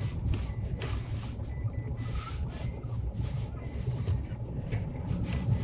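Mitsubishi L200 pickup driving slowly over rough off-road ground, heard from inside the cab. There is a steady low engine and drivetrain rumble with scattered short knocks and rattles from bumps.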